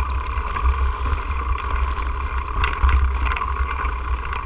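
Wind buffeting a bike-mounted camera's microphone while a mountain bike rolls along a dirt trail, with steady rolling noise and a few sharp clicks and rattles from the bike over bumps.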